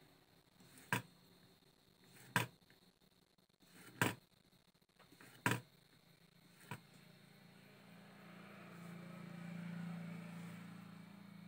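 Five sharp knocks about a second and a half apart, from tools and the circuit board being handled on a wooden bench during desoldering, followed by a low hum that swells from about eight seconds in.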